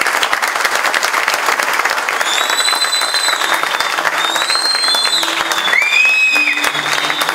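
Audience applauding steadily. From about two seconds in, several high, held whistles rise over the clapping.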